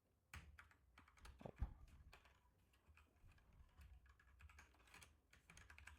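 Faint typing on a computer keyboard: scattered, irregular key clicks, one a little louder about a second and a half in.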